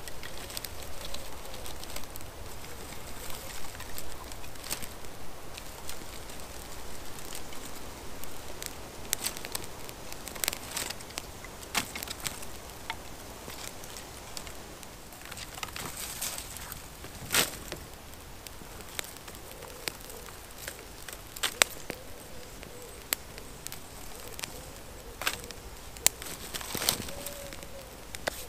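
A newly lit campfire of dry twigs crackling, with scattered pops and a few louder sharp snaps as sticks are laid on and burn.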